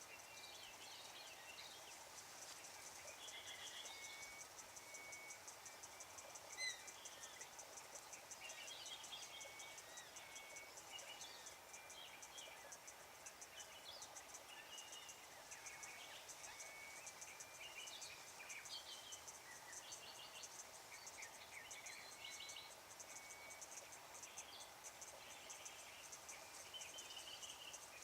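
Faint wetland ambience: a steady high insect trill, with scattered short animal calls, like birds or frogs, over it. There is one brief louder click about a quarter of the way in.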